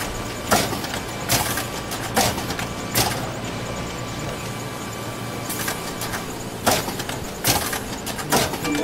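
Steady background noise with sharp clicks or knocks about once a second. A short falling three-step chime comes right at the end.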